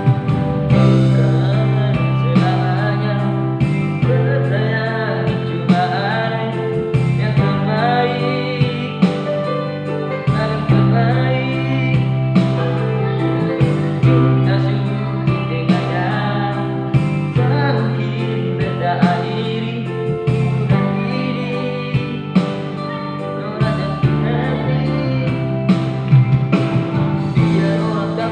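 A man singing in a high voice over an instrumental backing track with a steady beat.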